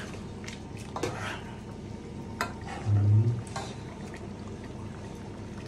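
Metal spoon stirring a thick fish curry in a pot, with a few light clinks of the spoon against the pot. A man's voice murmurs briefly about three seconds in.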